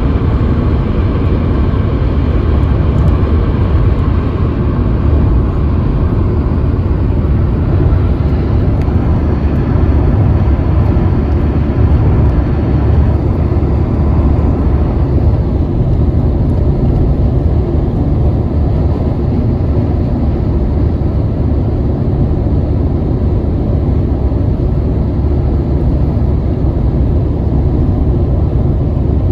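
Steady low road rumble of a car driving at speed, heard from inside the cabin.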